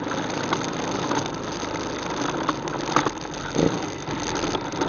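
ATV engine running steadily, with a couple of short knocks or rattles about three seconds in.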